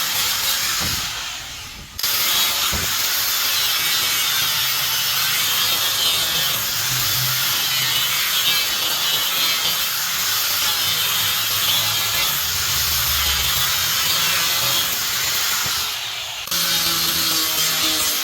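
Turning tool cutting into wood spinning on a lathe, a steady hissing, scraping cut that drops away briefly about a second in and again near the end.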